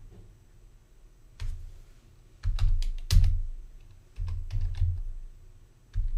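Keystrokes on a computer keyboard in a few short runs, typing a login name and password.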